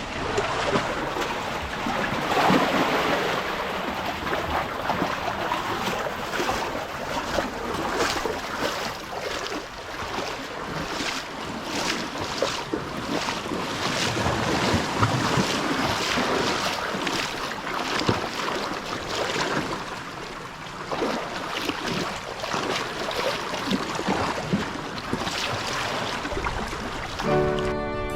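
Gentle sea waves washing and splashing along a rocky shore, with wind on the microphone.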